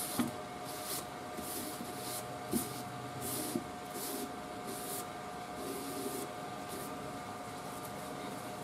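A rag wet with lacquer thinner rubbed back and forth over a wooden cabinet's old finish, softening the crazed lacquer: soft swishing strokes about every half to two-thirds of a second, fainter after about five seconds, over a faint steady hum.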